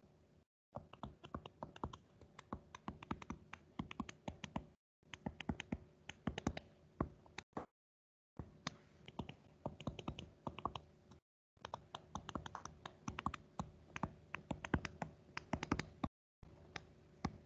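Stylus tapping and scratching on a touchscreen while equations are handwritten: a quick, irregular run of light clicks, broken by a few short pauses.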